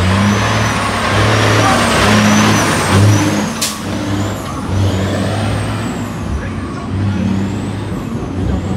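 Big-rig trucks rolling past close by with their diesel engines running, and a sharp air-brake hiss about three and a half seconds in. Low steady tones sound on and off over the rumble.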